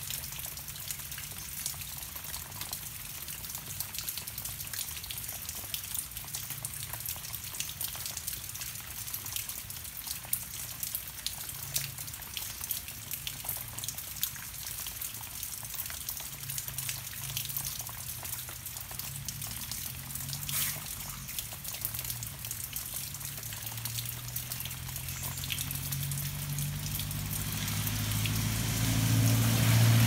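Steady rain falling on foliage, a constant hiss with many small drips and taps. A low hum lies underneath and swells louder over the last few seconds.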